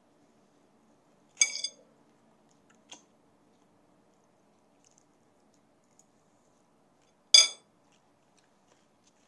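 Metal fork clinking against a plate twice, each a sharp, briefly ringing strike, about six seconds apart, with a fainter click in between.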